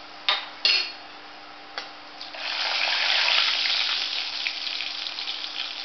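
Dried red chillies and mustard seeds frying in hot oil in a kadhai for a tempering. A few sharp clicks come in the first two seconds, then a loud sizzle swells about two seconds in and slowly dies down with fine crackling.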